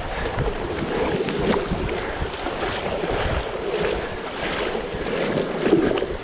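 Creek water splashing and sloshing right at a wet GoPro as someone wades over rocks, in a rapid irregular run of splashes.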